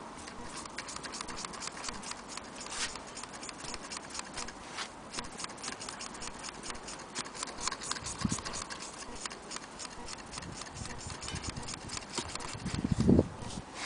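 Antique Willcox & Gibbs chain-stitch sewing machine running while turned by hand, its needle bar and hook making a rapid, even clatter of clicks as it stitches cloth. A heavier knock near the end.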